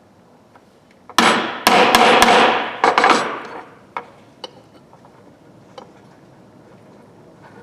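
Hammer striking metal: a quick run of about five sharp metallic hits with clatter over two seconds, then a few lighter taps on a small steel tool part.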